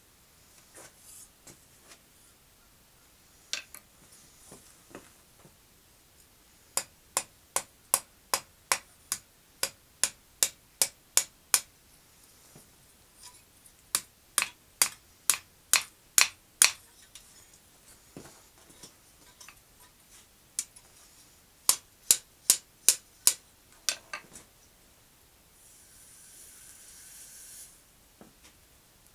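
Ball-peen hammer striking hot steel on an anvil: runs of sharp, ringing blows about three a second, with pauses and a few lighter taps between runs. A short hiss near the end.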